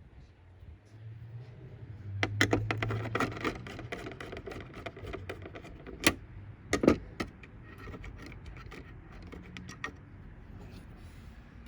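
Parts of a flat-screen TV being handled during disassembly: a string of small clicks, clinks and rattles, busiest a couple of seconds in, with two louder knocks about six and seven seconds in.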